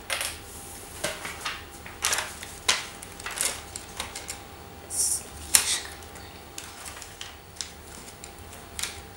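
Scattered clicks and taps of hands handling a plastic Lego Technic model and its pencil arm, with a short rustle of a paper sheet being laid on the platform about five seconds in.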